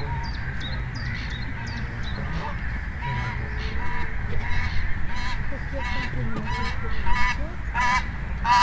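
Geese honking in a series of short calls that grow louder from about three seconds in, over a steady low background rumble, with a few high small-bird chirps at the start.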